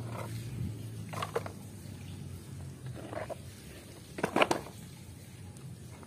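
Mud-covered plastic toys clunking and knocking as they are picked up off a wooden tray and dropped into a plastic basket: a few short separate knocks, the loudest a quick cluster about four seconds in.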